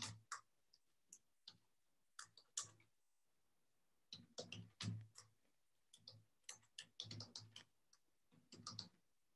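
Typing on a computer keyboard: faint, irregular keystroke clicks in short runs with pauses between them.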